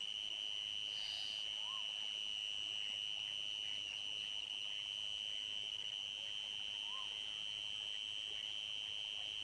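Night insect chorus, crickets trilling: one continuous high-pitched drone at a constant level. A few faint short calls from another animal come through, about two seconds in and again near seven seconds.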